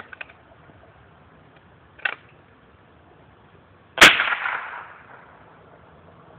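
.22 rifle firing a single shot about four seconds in: a sharp crack with a short echo trailing off. Lighter clicks come at the start and about two seconds in.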